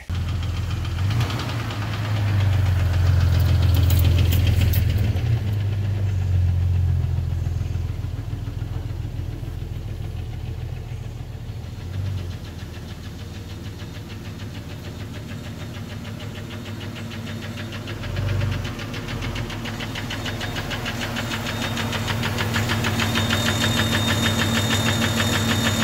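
Jeep Cherokee XJ's 4.0-litre inline-six running with a rapid, even ticking knock, a really bad ticking, knocking, grinding sound. It is louder in the first few seconds. The sound is most likely the sign of a chunk broken off the number 3 piston.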